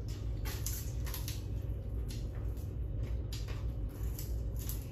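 Eating sounds from fried tilapia and rice eaten by hand: a scatter of small clicks, crackles and mouth noises from picking at and chewing the fish, over a steady low hum.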